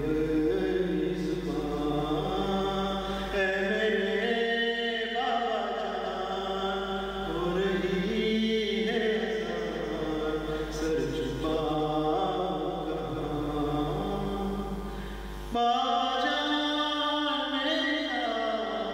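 A man's voice chanting a marthiya, an Urdu mourning elegy, in slow melodic phrases with long held, gliding notes.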